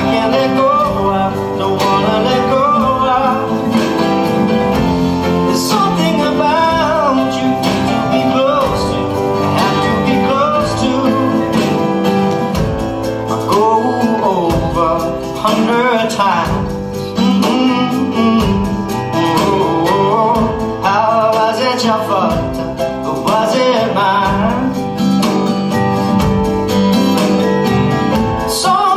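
A song with guitar accompaniment and a singing voice, playing steadily throughout.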